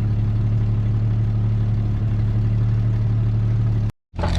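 Jeep Cherokee XJ engine idling steadily with an even, low hum, cutting off abruptly near the end.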